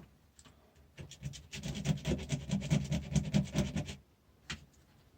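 Rapid scraping on a food mixer's motor windings, about ten quick strokes a second for a couple of seconds, then a single click: the varnish is being scratched off the winding to test whether the wire is copper or aluminium.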